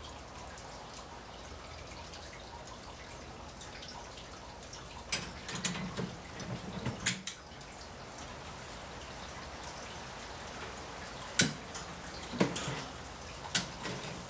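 Metal utensils clicking and clinking against the smoker's wire grate in two short clusters, about five seconds in and again about eleven seconds in, over a steady faint hiss.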